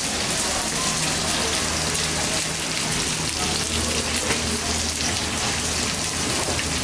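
Sliced ginger and scallions sizzling in a wok over a high-flame gas wok burner: a steady hiss with a low hum underneath.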